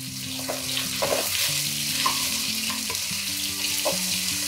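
Ginger-garlic paste sizzling in hot oil as it is stirred in a pot, with short scrapes of the spoon against the pan; the sizzle grows a little louder about a second in.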